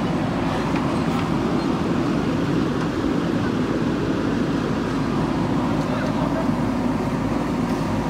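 JCB 3DX backhoe loader's diesel engine running steadily under load as the backhoe arm digs into sand and gravel.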